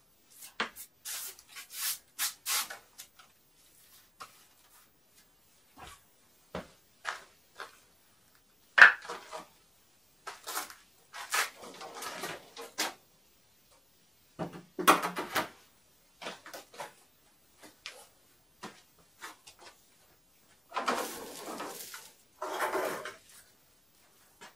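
Wooden formwork boards being handled and laid down: scattered knocks, clatters and scraping of wood on wood. A sharp knock comes about nine seconds in, a louder clatter around fifteen seconds, and a longer scrape near the end.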